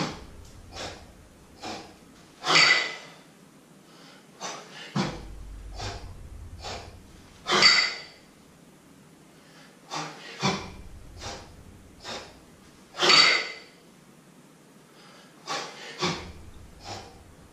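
A man breathing hard through a set of double kettlebell jerks: sharp, forceful exhalations about every five seconds, with shorter quicker breaths between them.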